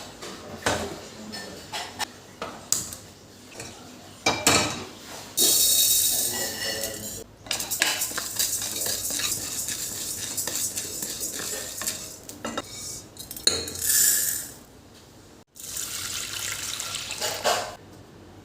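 Kitchen dishes and utensils clinking and clattering, with water running in stretches between the knocks, as in washing up at a sink.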